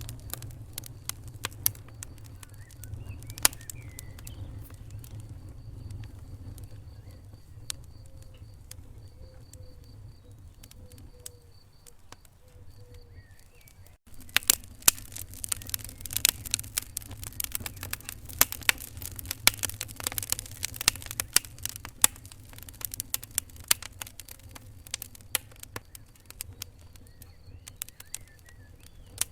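Wood fire crackling in a fireplace: irregular sharp pops and snaps over a steady low rumble of the flames. About halfway through there is a brief dip, and then the popping becomes denser and louder.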